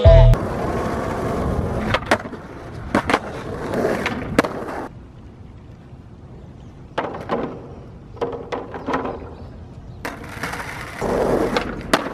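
Skateboard wheels rolling on pavement, with a series of sharp clacks from the board hitting the ground. The rolling fades about five seconds in and returns near the end.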